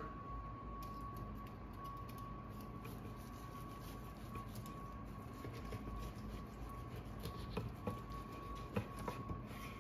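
Faint knife work carving a smoked turkey breast off the bone: soft, irregular cutting noise with a few small clicks near the end, over a steady background hum with a thin high tone.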